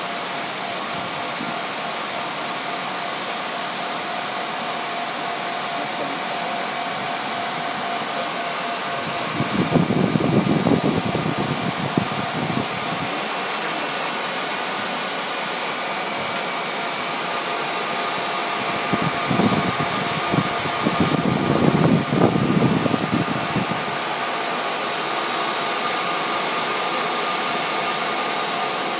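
Cooling fans of rack-mounted network equipment, including a router, running with a steady rushing whoosh and a few faint steady whining tones. Twice, for a few seconds each, an irregular low rumbling rises over the fan noise.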